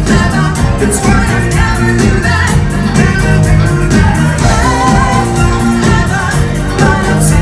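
Live band playing a pop song with sung vocals, drums, bass guitar and keyboards over a steady beat, heard from the crowd.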